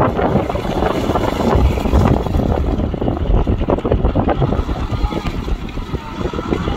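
Kubota M6040SU tractor's diesel engine running under load as its rear rotavator churns through waterlogged mud, with steady sloshing and splattering of mud and water.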